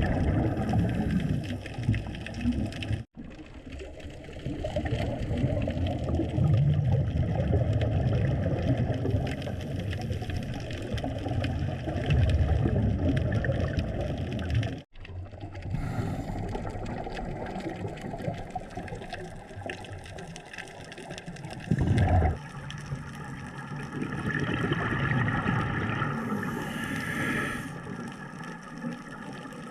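Underwater sound inside a diving camera housing: a steady low rumble with the gurgle of scuba divers' exhaled bubbles. There is a short thump a little past two-thirds through, then a few seconds of louder hissing bubbling, and the sound drops out abruptly twice.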